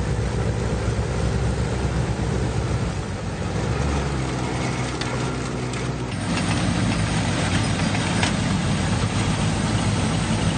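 Tractor engine running steadily while powering a tractor-mounted snow blower that is throwing snow. The sound changes about six seconds in.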